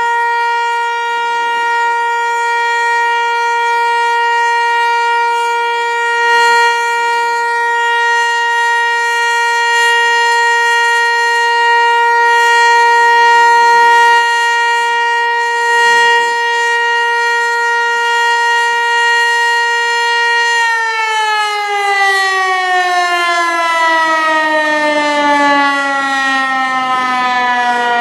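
Federal Signal Eclipse 8 electronic outdoor warning siren sounding a steady tone during its monthly test. About twenty seconds in, the pitch starts falling slowly and keeps dropping as the siren winds down.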